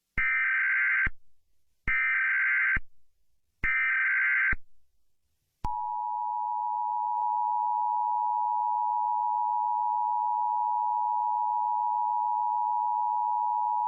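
Emergency Alert System tones: three short bursts of SAME header data, each about a second long, followed by the EAS two-tone attention signal (853 and 960 Hz together), held steadily for about eight seconds.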